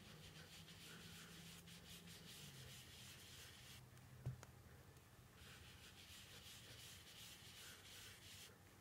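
Blending brush rubbed and swirled over cardstock, a faint soft bristle scrubbing in two spells. In the pause between them, about four seconds in, comes a single light tap.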